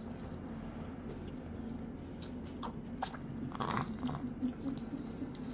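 A baby's wet mouth smacks and squelches as he gums and chews a piece of cheese, a handful of short smacks in the middle, over a faint steady hum.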